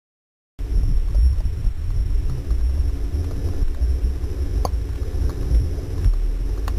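Steady low underwater rumble of water moving around the camera, beginning suddenly about half a second in, with a few faint sharp clicks scattered through it.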